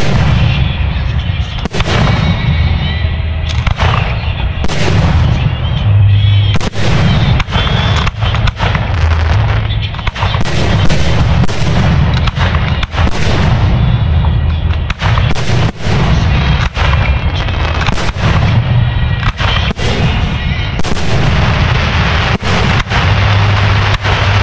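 Fireworks display: aerial shells bursting one after another, about one or two sharp reports a second and coming thicker in the second half, over a steady deep rumble with music playing underneath.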